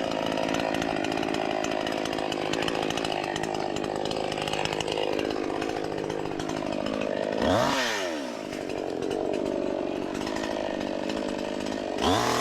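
Two-stroke gasoline chainsaw running steadily, revving up sharply about seven and a half seconds in and dropping back, then revving up again near the end.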